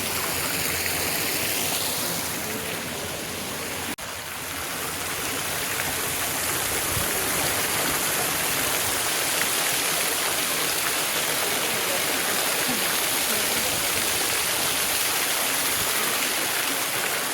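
Steady rush of a waterfall, a multi-tiered cascade pouring down close by, with a brief break in the sound about four seconds in.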